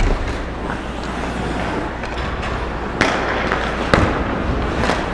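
Ice hockey play around the goal crease: skate blades scraping and carving the ice, with a thump at the start and sharp knocks about three and four seconds in.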